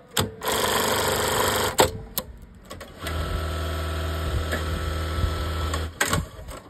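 Industrial high-speed lockstitch button-sewing machine running its stitching cycles. A short loud run starts about half a second in and ends in a sharp clack. A steadier run of about three seconds with a low motor hum follows from about three seconds in, then stops with a few clicks.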